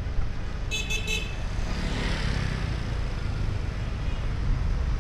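Road traffic with a steady low rumble and wind on the microphone; a vehicle horn gives a few short toots in quick succession about a second in, followed by a vehicle passing close.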